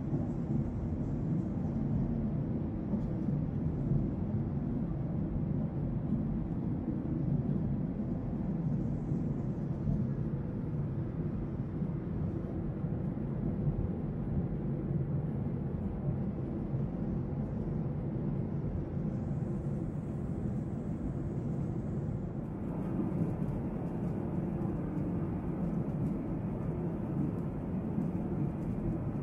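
Airliner cabin noise in flight: a steady low rumble. Its tone shifts slightly about two-thirds of the way through.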